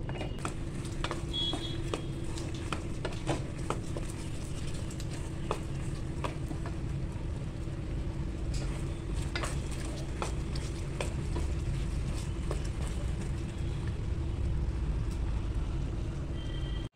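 Thick syrup bubbling around whole gooseberries in a steel pot, with a wooden spatula clicking and scraping against the pot now and then over a steady low hum.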